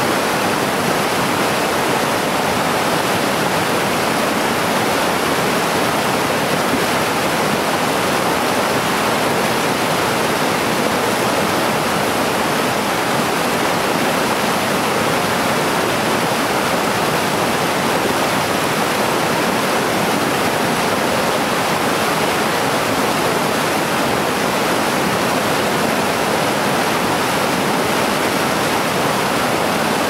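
Mountain stream swollen with snowmelt, rushing over small waterfalls: a steady, unbroken rush of water.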